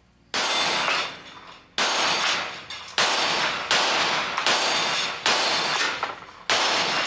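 Sig Sauer P320 9mm pistol fired in a string of single shots, one every second or so. The first two shots are further apart than the rest, and each report has a long echoing tail.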